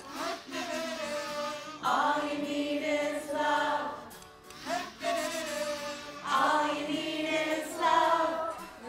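A group of amateur voices, each recorded at home and layered into one mix, sings the song's melody together in held notes.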